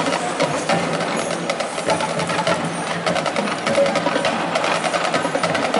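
Marching band drumline playing a marching cadence: quick, closely spaced snare drum strokes over the drumline's other drums.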